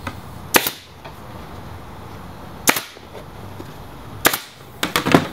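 Pneumatic air staple gun firing staples through a vinyl seat cover into a dirt bike seat base: single sharp shots a second or two apart, then several in quicker succession near the end.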